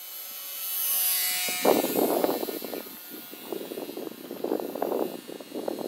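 High buzzing whine of a small electric RC-plane motor and propeller flying overhead, loudest in the first second or so. From about a second and a half in, gusts of wind buffet the microphone and mostly cover the whine.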